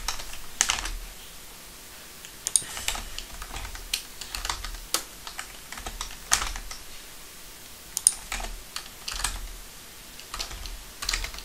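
Computer keyboard keys pressed in scattered single taps and short runs, with irregular gaps between them: keyboard shortcuts and letter keys being struck.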